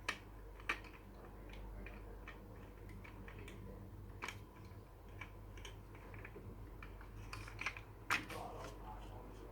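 Small plastic Lego pieces being handled and snapped into place: irregular light clicks and clatters, with a few sharper clicks at the start and near the end.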